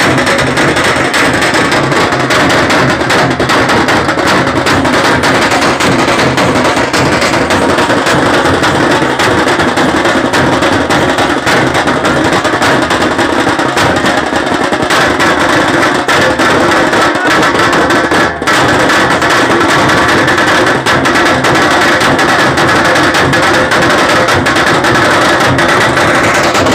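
Loud, fast festival drumming with music, running without a break; only one brief dip about three-quarters of the way through.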